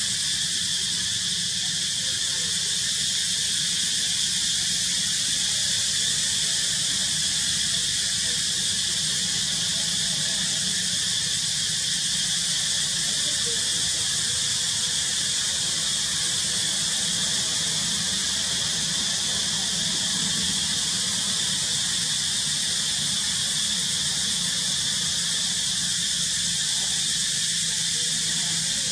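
Steady, high-pitched insect chorus, a continuous shrill drone that holds level without a break.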